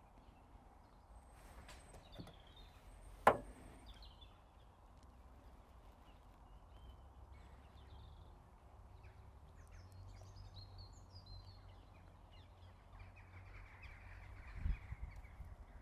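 Quiet outdoor background with a low rumble and birds calling in the distance now and then. A single sharp click about three seconds in, and a duller knock near the end.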